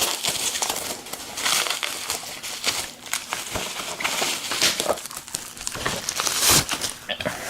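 Plastic bubble wrap crinkling and rustling as it is pulled away from a package by hand, with scattered sharp pops and crackles.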